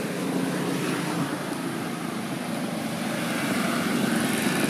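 A motor engine running steadily and growing louder.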